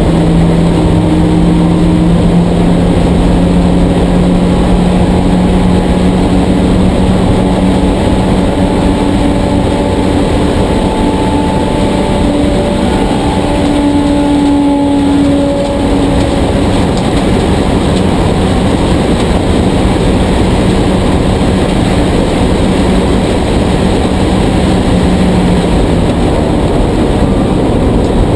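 Porsche 944 Spec race car's 2.5-litre inline-four heard from inside the cockpit. It runs flat out down the oval, holding a steady, unchanging note under heavy wind and road noise. Near the end the steady note breaks off.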